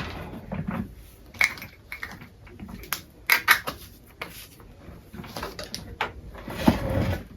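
Small objects being handled and rummaged through: scattered clicks, taps and rustles, with a longer rustle near the end.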